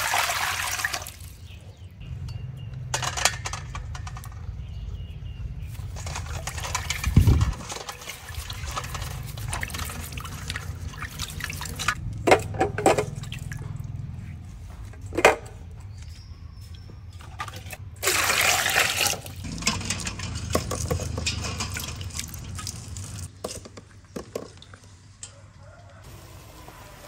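Water poured from a bowl into a stainless steel bowl, splashing and running, at the start and again about two-thirds of the way through. In between come water handling sounds and a few sharp knocks against the bowl.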